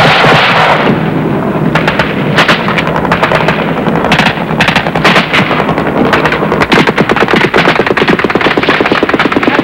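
Heavy small-arms gunfire in a firefight: single shots and rapid bursts of automatic fire crowding one on another, densest and fastest in the second half, loudest right at the start.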